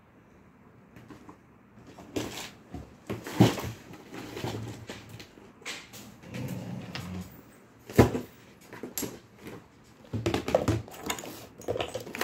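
Cosmetics being handled and packed into a zippered fabric makeup pouch: rustling with scattered clicks and knocks, the two loudest about three and a half and eight seconds in.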